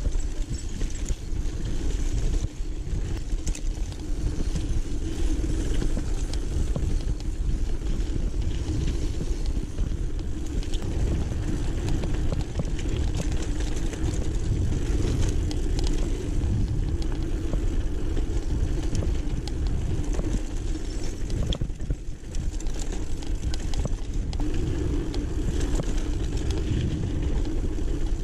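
Mountain bike ridden fast along a dirt singletrack: a steady low rumble of wind on the microphone and tyres on dirt, with frequent small rattles and knocks from the bike over the bumps.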